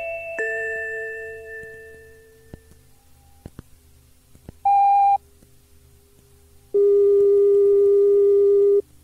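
Playback of a Shinkansen onboard-announcement cassette: the last note of a bell-like announcement chime dies away over about two seconds, then after a few faint clicks a short electronic beep sounds, followed by a steady, lower electronic tone lasting about two seconds.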